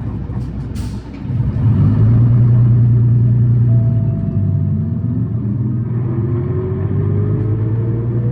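City bus engine heard from inside the cabin: a short air hiss, then about a second in the engine note rises sharply and loudly as the bus pulls away. From about halfway through, a thin whine climbs steadily in pitch as the bus gathers speed.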